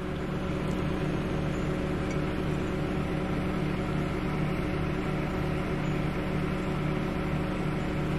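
A steady mechanical hum, a low drone with several steady tones above it, fading up just before and then holding unchanged.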